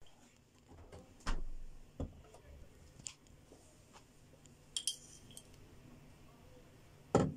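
Metal teaspoon clinking and scraping against a glass jar while scooping sugar, with scattered taps. There are two short ringing clinks about five seconds in and a heavier knock near the end.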